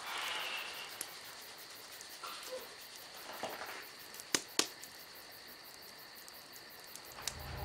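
Quiet room tone with a faint steady high whine. A soft rustle comes at the start as someone settles into a blanket-covered armchair, faint hand-rubbing swishes follow a few seconds in, and two sharp clicks come close together about four and a half seconds in.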